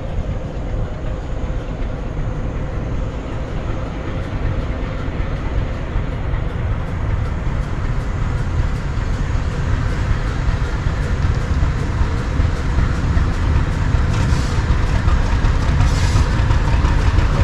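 ChME3 shunting diesel locomotive running as it moves a train of wagons: a steady low diesel rumble that grows slowly louder as it approaches, with the clatter of wheels on the rails.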